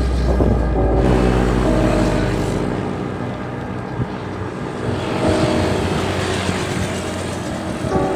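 Background music with sustained notes over road traffic noise. A deep rumble runs through the first three seconds, and a hiss swells and fades in the middle.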